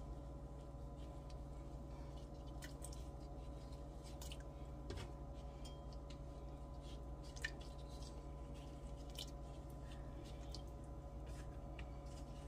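Quiet scattered ticks and soft squishy handling sounds as gloved hands pull apart store-bought dumplings and drop them into a pot of broth, with one sharper click a little past halfway, over a steady low hum.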